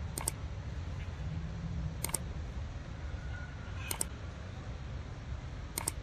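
Mouse-click sound effects: four quick double clicks about two seconds apart, over a steady low background rumble.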